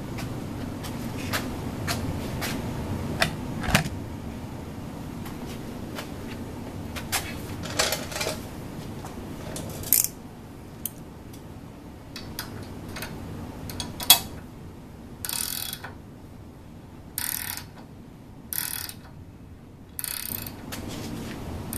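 Small metal parts clinking and knocking, then a ratchet wrench clicking in four short spurts as the nut on the end of a ball screw is tightened.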